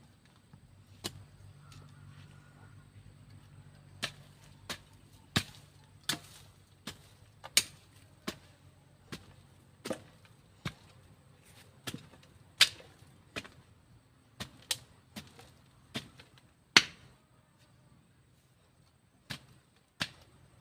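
Digging hoe chopping into garden soil, a series of sharp strikes about one every 0.7 seconds, with a short pause near the end before the strikes resume.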